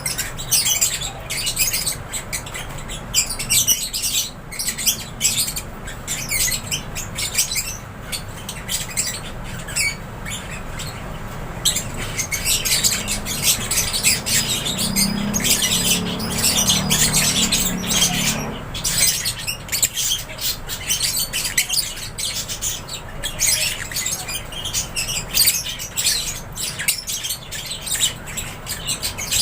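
A flock of aviary lovebirds chirping continuously in dense, overlapping high calls. About halfway through, a low hum comes up beneath the calls for several seconds.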